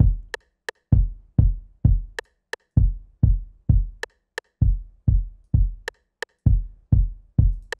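Programmed drum loop at about 130 BPM: a low-passed, pitched-down FL Studio kick drum thumping about twice a second, answered by pairs of sharp rimshot clicks in a dancehall pattern. The kick grows duller over the loop as its low-pass filter cutoff is lowered.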